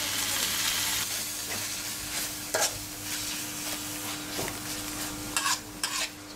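Metal spoon stirring and scraping a frying fish and water mimosa mixture around a metal wok over a steady sizzle, with a few sharp metal-on-metal scrapes about two and a half seconds in and a cluster near the end.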